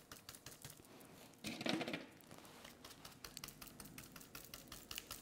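Rapid light tapping of a stencil brush pounced onto a painted wooden cutout, several taps a second. About a second and a half in there is a brief louder noise.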